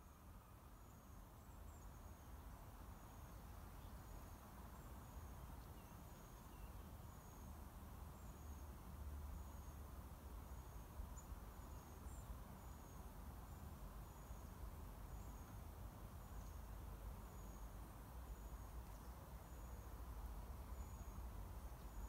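Quiet pine-forest ambience: short, high, thin chirps repeating roughly once a second over a steady low rumble of distant traffic.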